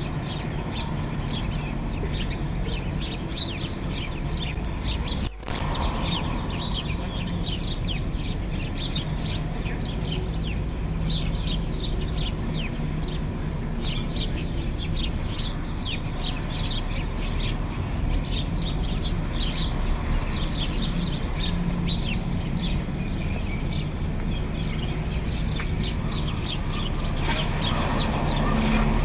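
A flock of house sparrows chirping continuously, many short overlapping chirps, over a low steady background rumble. The sound drops out for an instant about five seconds in.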